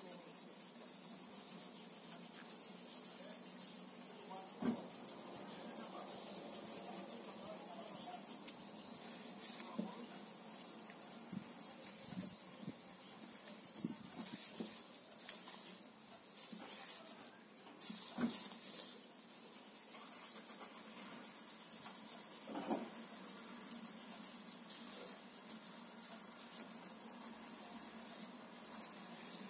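Wire wool rubbing over a brass light-fitting ring, a steady rubbing with a few short breaks about halfway through.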